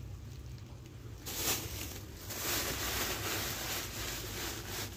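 Plastic bags rustling as they are handled, starting about a second in, over a steady low hum.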